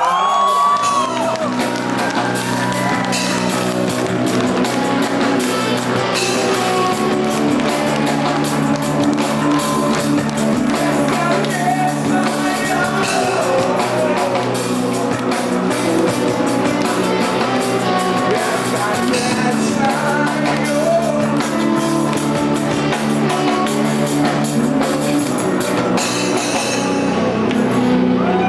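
Live rock band playing loudly with distorted guitars, drums and singing, the audience shouting over the music near the start and again near the end.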